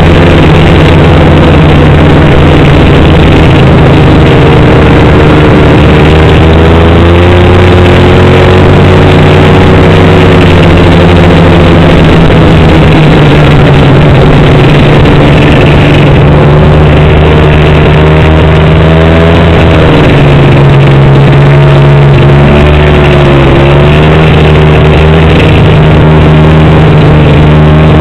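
Snowmobile engine running loud and steady under way, its pitch dipping and rising a few times with the throttle.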